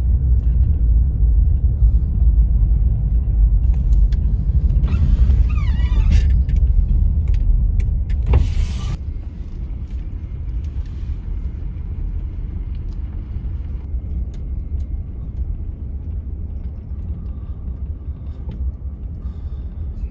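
Car cabin rumble of a vehicle on the highway, engine and road noise heard from inside. The rumble drops to a noticeably lower level about eight seconds in, with a couple of brief higher-pitched sounds just before.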